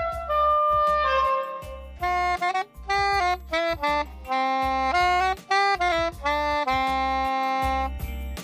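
Soprano saxophone playing a run of notes, first in a hard brick-walled room where each note rings on and blurs into the next, then from about two seconds in, in a foam-lined anechoic room where the notes stop dead with no echo.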